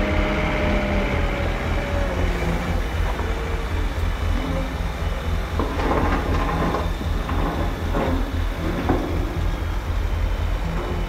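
Steady, throbbing engine sound of a radio-controlled Liebherr wheel loader model, with a few short clattering noises about six to nine seconds in.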